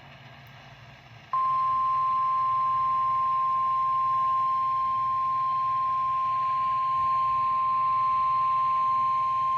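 Emergency Alert System attention signal: a single steady tone just above 1 kHz, the 1050 Hz warning alarm tone of NOAA Weather Radio. It comes in abruptly about a second in, after faint radio hiss, and holds unchanged, announcing a severe thunderstorm warning.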